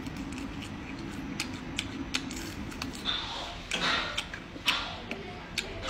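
Crisp clicks and crunches of deep-fried centipedes being bitten and chewed off bamboo skewers, over a low steady hum. A flurry of louder crunches comes a little past halfway.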